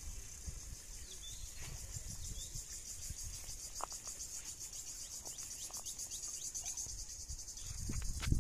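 Steady high-pitched insect chorus of crickets or cicadas, a fast pulsing trill that runs on without a break. Faint low rumble and a few light splashes lie underneath, growing near the end.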